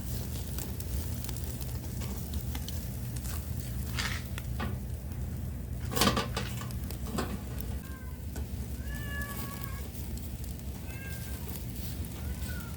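A cat meowing in a series of short calls through the second half, over a steady low rumble. A sharp clatter about six seconds in is the loudest moment.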